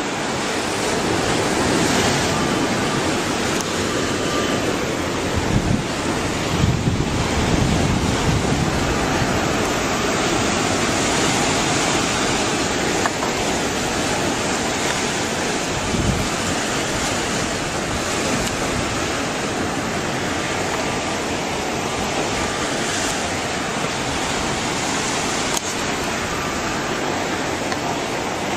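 Tsunami surge churning through a harbour: a steady, loud rushing of turbulent water, with gusts of wind buffeting the microphone a few times.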